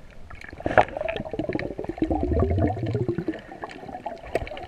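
Muffled underwater gurgling and bubbling heard by a submerged camera. There is a sharp knock a little under a second in, then dense crackling with a low rumble around two to three seconds.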